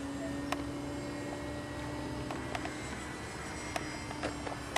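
Small RC airplane's motor and propeller droning overhead in a steady tone, with a few scattered sharp clicks.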